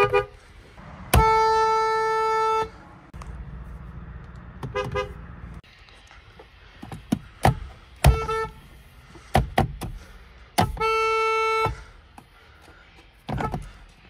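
Car horns of a Toyota and then a Kia, pressed in turn from the driver's seat. There is a single-note honk of about a second and a half, short toots, and a second honk of about a second near the end, with sharp taps in between.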